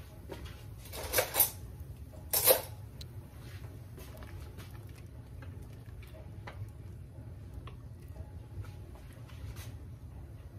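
A spoon clinking against a cooking pot while stirring and tasting soup: three sharp clinks in the first few seconds, then a low steady hum with faint small scrapes.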